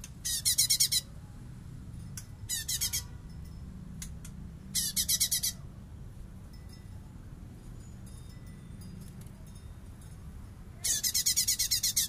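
Male blue-winged leafbird (cungkok) singing in four short bursts of rapid, evenly repeated high chattering notes, the fast rattling song that keepers call besetan. The last burst is the longest, a little over a second. A steady low hum runs underneath.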